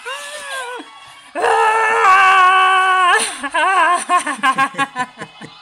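Monster cries for a giant shrimp-like creature: a short rising-and-falling cry, then about a second and a half in a loud, long held wail, which breaks into a quick run of short wavering cries.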